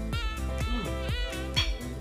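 Background music with a steady beat, sustained low notes and a melody of bending notes.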